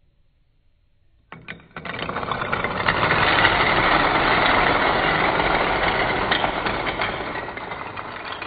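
Hundreds of toy dominoes toppling in a chain reaction. The sound starts about a second in with a few separate clicks, builds into a dense, rapid clatter as many rows fall side by side, and thins out near the end.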